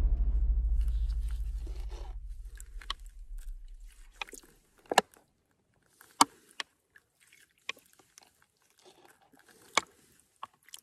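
Background music ends on a deep low note that dies away over about four seconds. Then come scattered sharp clicks and short scrapes of plastic gear being handled, as a collapsible cup dips water from a creek and pours it into a water-filter bottle.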